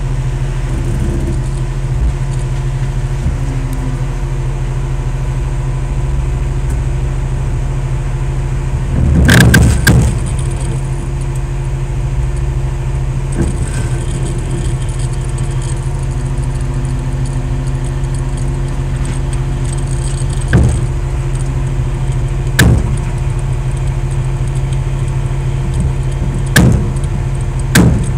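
Heavy diesel engine drone heard from inside a truck cab while the truck is towed through deep mud. A louder rushing burst comes about nine seconds in, and there are a few sharp clanks in the second half.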